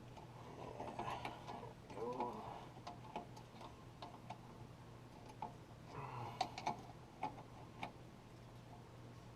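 Scattered light metallic clicks and taps of a wrench and fitting being worked as hydraulic fittings are screwed in and tightened, with faint handling noise.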